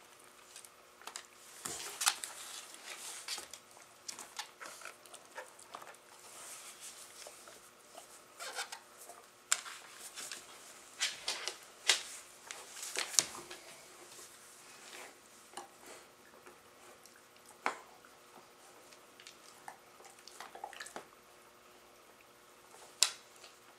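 Dogs scuffling in play, with irregular sharp clicks and brief rustling scuffles; the loudest clicks come about 2, 12, 13 and 23 seconds in.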